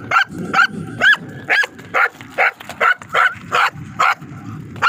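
A white gultair (Pakistani bull terrier) barking in a steady run, about two barks a second.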